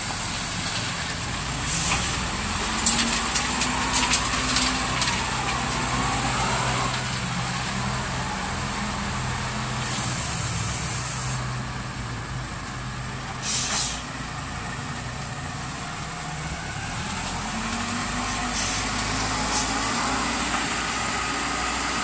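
Self-loading concrete mixer truck's diesel engine running as the truck moves, its pitch rising and falling a few times. Short loud hisses of released air break in about ten and fourteen seconds in, the second the loudest.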